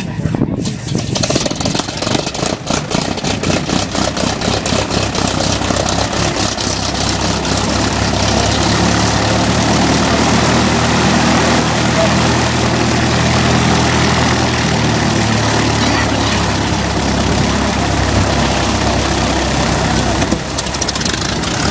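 Small single-engine propeller airplane's engine starting: it catches with separate firings that quicken over the first few seconds, then settles into a steady idle.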